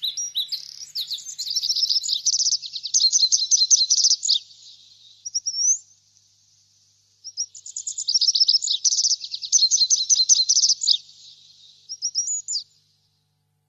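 A songbird singing in two long bouts of rapid, high-pitched chirps and trills. The second bout starts about seven seconds in.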